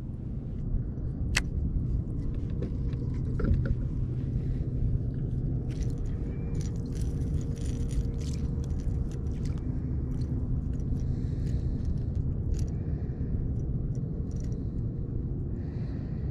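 Steady low rumble with a faint hum, under scattered small clicks and scrapes of a caught bass being unhooked by hand.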